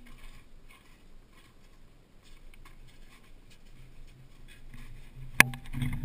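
Footsteps on crusted snow and grass, irregular and soft, with a single sharp knock about five seconds in, the loudest sound. A low hum grows over the last couple of seconds.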